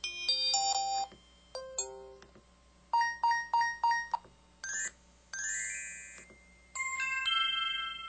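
IM-U130 mobile phone speaker playing a series of short electronic alert-tone previews one after another. They are brief chime-, bell- and xylophone-style note jingles, one of them a rising sweep, each a second or less long, with short pauses between them.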